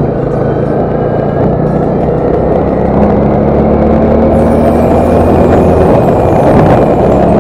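Motorcycle engine running steadily while riding, with wind rushing over the microphone; the engine note steps up a little about three seconds in.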